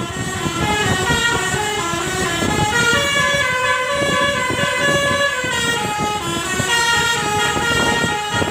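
Bus-mounted Basuri 'telolet' multi-tone horn playing a long, winding melody. Several tones sound together as a chord that steps up and down in pitch, over a low rumble.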